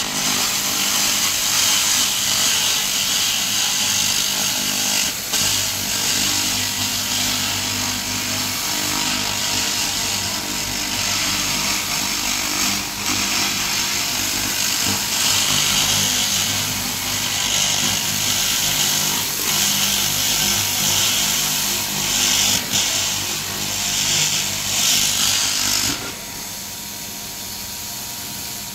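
Handheld laser rust-cleaning heads ablating rust off a steel bar: a 3000 W continuous laser and a 200 W pulsed laser working at once make a loud, steady crackling hiss over a low hum. About 26 s in the louder of the two stops and a quieter crackle from the one still working carries on.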